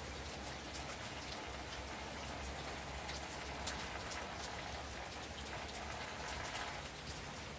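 Steady gentle rain mixed with the crackle of a wood fire: an even hiss with scattered sharp pops and clicks throughout.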